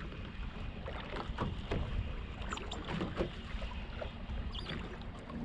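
Small waves lapping and slapping irregularly against the hull of a small fishing boat, over a low steady rumble.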